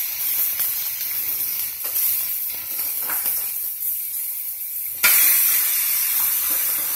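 Pork chops sizzling in hot sesame oil in an electric skillet, a steady frying hiss. About five seconds in it suddenly gets louder as another chop is flopped down into the oil.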